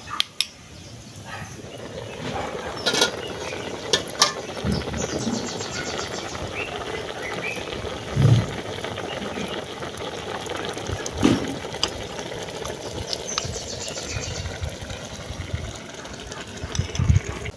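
A pot of sauce cooking with a steady hiss, broken by a few sharp knocks of utensils or the pot, the loudest about 8 and 11 seconds in.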